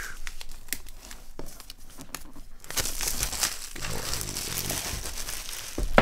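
Clear plastic wrap crinkling and tearing as it is pulled off a cardboard keyboard box. First comes a run of small snaps and clicks, then a denser crackly rustle over the last three seconds.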